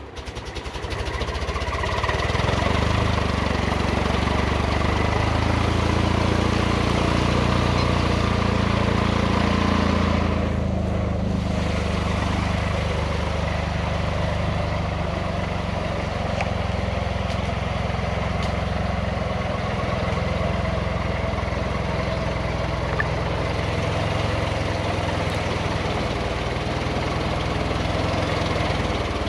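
1952 REO army truck's engine idling steadily, running again after sitting for years; it eases off slightly about ten seconds in.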